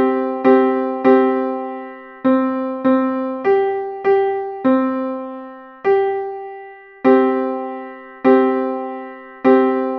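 Piano playing a simple beginner piece in chords in the middle register, each chord struck and left to ring and fade, at a steady unhurried pulse with a few chords held twice as long.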